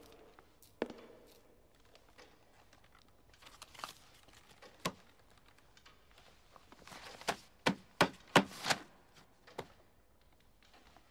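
Scattered sharp knocks and clicks, with a quick run of five louder ones about seven to nine seconds in.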